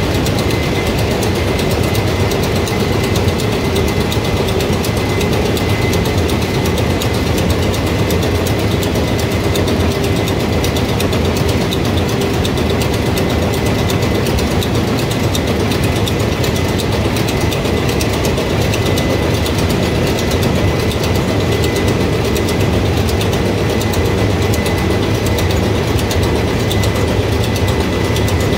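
Akasaka marine main diesel engine running steadily: a loud, even engine-room din with a faint steady high whine over it.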